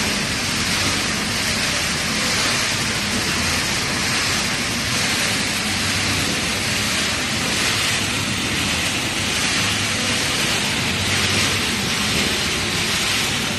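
Dry pet-food kibble tumbling and cascading inside a rotating stainless-steel drum: a steady, dense rattle of many small pellets that sounds like heavy rain.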